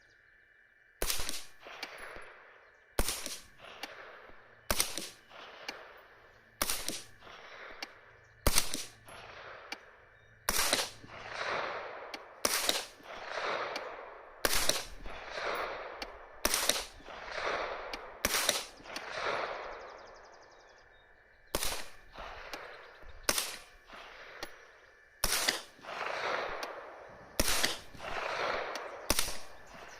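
Suppressed blowback 9mm AR-9 carbine firing about fifteen single shots at a steady pace, roughly one every two seconds. Each shot is followed by a rolling echo that dies away before the next.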